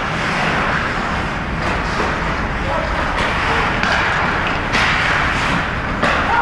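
Ice hockey rink din: crowd voices and a steady noisy rush, broken by a few sharp knocks of stick or puck play.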